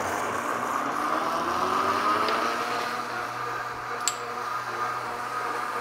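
Vitamix A3500 blender running its self-cleaning cycle, its motor whirring steadily while soapy water churns into foam in the container.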